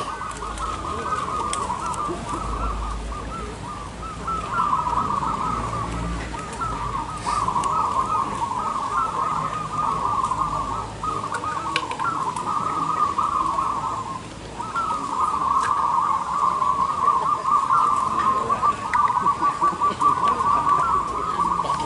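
A chorus of many caged zebra doves (perkutut) cooing at once, their trilled coos overlapping into a continuous chorus, with a brief lull about two-thirds of the way through.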